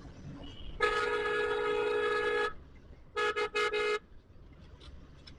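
Vehicle horn: one long honk of about a second and a half, then three quick short toots, over low traffic rumble.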